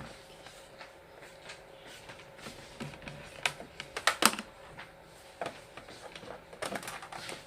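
Irregular light clicks and knocks of hands handling plastic parts and a plug while a mini fridge's power cord is being plugged in, with a faint steady hum underneath.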